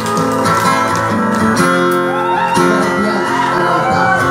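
Live acoustic guitar music playing steadily, with a wavering melody line above it from about halfway through.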